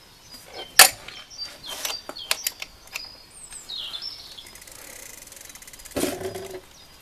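Sharp metal clicks and taps as a pedal is threaded by hand onto the crank of a children's mountain bike, the loudest about a second in. A bird chirps briefly in the middle, followed by a run of rapid fine ticking and a short scuffing noise near the end.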